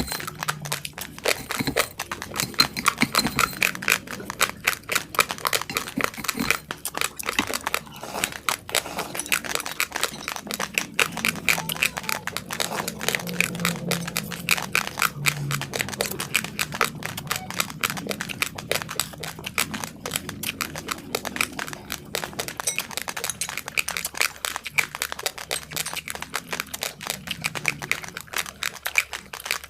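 Close-miked crunching of raw basmati rice being chewed: a rapid, uneven run of small cracks and crunches.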